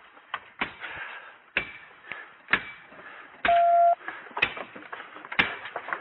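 Scattered sharp knocks and clatter, about one a second, with a single loud electronic beep lasting about half a second some three and a half seconds in.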